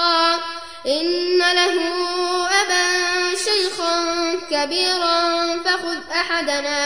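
A man reciting the Quran in the melodic, chanted tajweed style, drawing out long held vowels with ornamented turns in pitch. There is a brief pause for breath about a second in.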